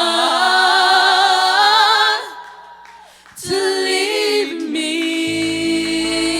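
Gospel vocal group singing a cappella, holding a chord with wide vibrato that fades away about two seconds in. A new sung chord then begins, and a low steady note joins it near the end.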